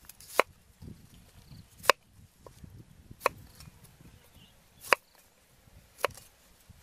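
Large knife chopping cauliflower on a round wooden cutting board: five sharp knocks of the blade hitting the board, spaced about one to one and a half seconds apart.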